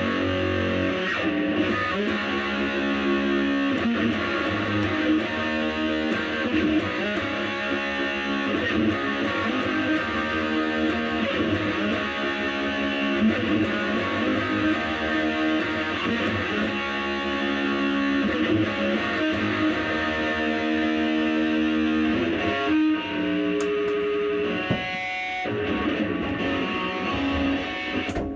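Electric guitar played through an EVH LBX-S 15-watt lunchbox amp on its high-gain red channel, with a Fuzz Face pedal set to a lot of fuzz: heavily distorted chords and riffs. Near the end it thins to a few held single notes before stopping.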